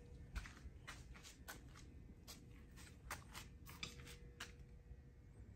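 Faint, irregular small clicks and rustles of a motorcycle wiring harness and its plastic connectors being handled, about a dozen and a half clicks that stop a little after four seconds in.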